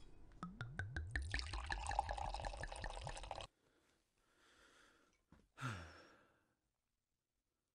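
Faint sound effects under an animated logo. A handful of quick clicks, each dropping in pitch, lead into a dense, liquid-like gurgling texture that cuts off abruptly about three and a half seconds in. A single short swish follows near six seconds.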